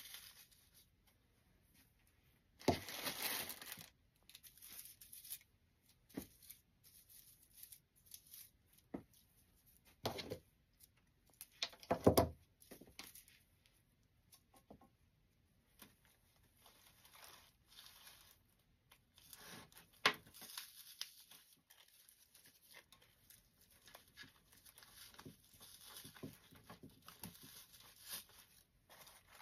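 Irregular rustling, crinkling and scraping of artificial flower stems and dry grapevine being handled and pushed into a wreath. There are louder scrapes about three and twelve seconds in, and a sharp knock about twenty seconds in.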